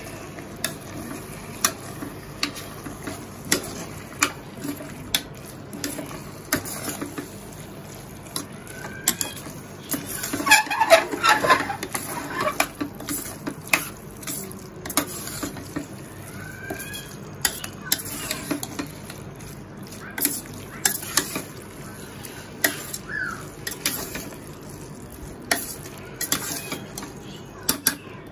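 Metal slotted spoon stirring and scraping a paneer, corn and vegetable mixture in a stainless steel pressure cooker, clinking against the pot's sides at irregular moments, with a busier stretch of clatter about ten seconds in. Beneath it the food sizzles in the pan.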